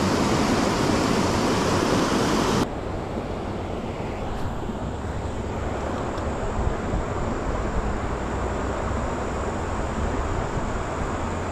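Creek water rushing over rocks in small rapids, a loud steady wash that cuts off abruptly about three seconds in. After that a quieter steady outdoor hiss with a low rumble of wind on the microphone and a faint thin high tone.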